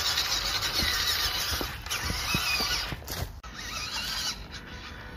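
A small RC crawler's Fayee 180 brushed motor and gearbox whine at a high pitch that rises and falls with the throttle. The whine stops briefly about three seconds in, and low knocks come from the truck working over the trail.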